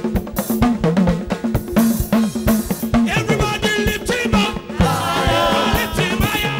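Live band music: congas and drum kit playing a fast, busy rhythm over an electric bass guitar line. About three seconds in, a wavering high melody joins, and the drumming thins out into more sustained music near the end.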